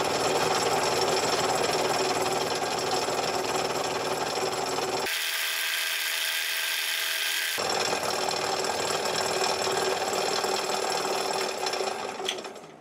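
Dore Westbury milling machine spindle running a woodworking router bit, milling a radius along the edges of a metal cylinder block: a steady whirring machine noise with the sound of the cut. It dies away shortly before the end.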